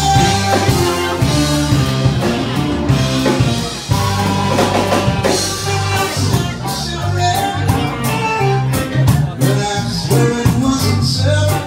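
Live rock band playing: electric guitars over a stepping bass line and a drum kit keeping a steady beat.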